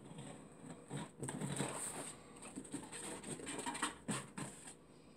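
Packing tape being pulled and peeled off a cardboard box, with irregular scratching and rustling of tape and cardboard under the hand and a few small clicks.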